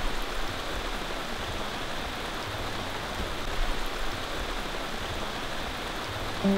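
Steady rain falling, an even hiss. A plucked acoustic guitar note comes in right at the end.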